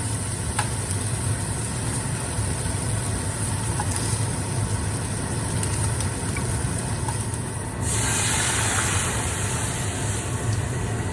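A steady low hum under quiet pan sizzle; about eight seconds in, a louder hiss of sizzling starts suddenly as something goes into the hot pan and keeps going.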